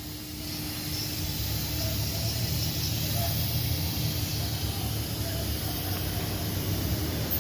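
A steady low mechanical rumble with a hiss, building over the first couple of seconds and then holding level.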